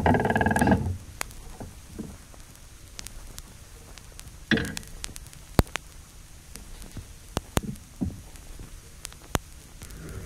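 Playback of a hand-cast resin record on a belt-drive turntable, carrying print-studio sounds picked up by contact microphones. A loud buzzing drone stops about a second in. After that comes a low surface crackle with scattered sharp clicks and a short scraping burst about four and a half seconds in.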